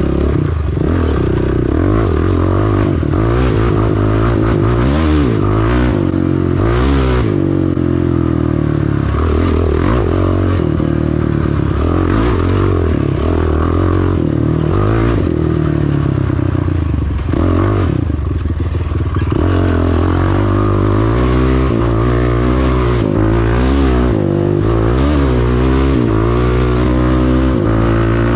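Honda ATV engine running while ridden along a dirt trail, its pitch rising and falling over and over as the throttle is opened and eased off.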